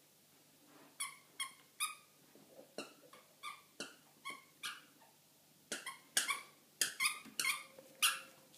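Puppy yapping: a run of short, high-pitched barks starting about a second in, coming faster and louder over the last three seconds.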